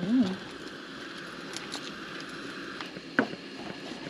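Chef's knife chopping garlic on a plastic cutting board: one sharp knock of the blade on the board about three seconds in and a few faint taps, over a steady low hiss.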